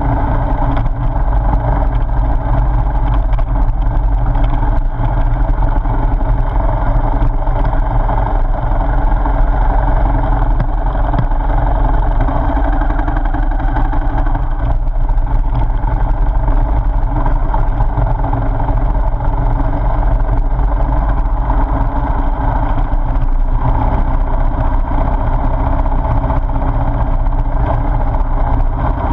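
Motorcycle engine running steadily under way at an even pace, with a heavy low rumble.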